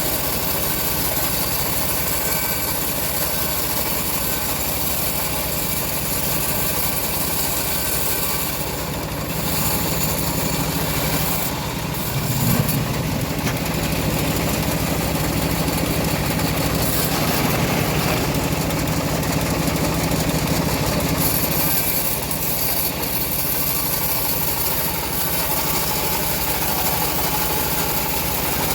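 Homemade engine-driven bandsaw mill running steadily while sawing a teak log. About twelve seconds in there is a short knock, and the sound grows louder and fuller for several seconds before settling back.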